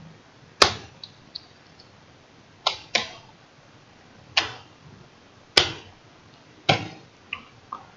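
Computer keyboard keys struck one at a time in slow, uneven typing: about ten separate clacks, a few of them faint, with pauses of up to a second and a half between them.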